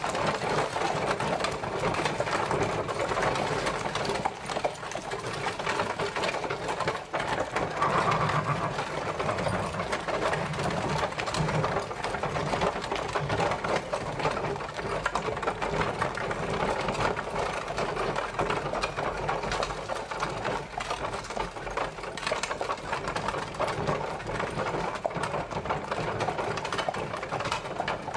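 Horse-drawn carriage travelling, a steady dense rattle and clatter.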